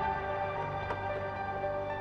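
Background music from a drama score: soft, slow ambient music of held notes, with a faint tick about a second in.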